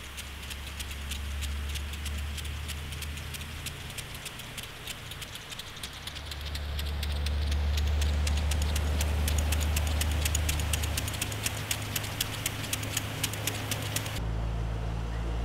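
An engine idling, with a fast, even ticking rattle over a low steady hum. The hum swells louder for a few seconds in the middle, and the sound changes abruptly near the end as the ticking stops.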